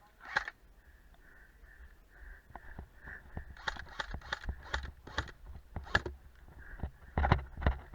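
Footsteps on the ground, a quick series of steps starting about halfway through and growing heavier and denser near the end.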